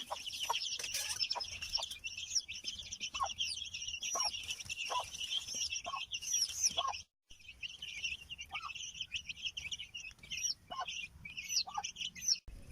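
Chickens calling: a dense chatter of high chirps and peeps, with short lower calls breaking in every half second or so. The sound cuts out for an instant about seven seconds in.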